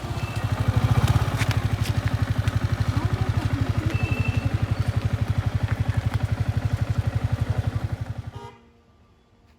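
Small motor-vehicle engine, likely a motorcycle, running close by with a rapid, even low pulsing. It stops abruptly near the end.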